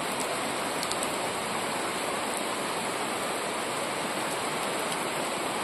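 Steady rain falling: an even hiss with no let-up.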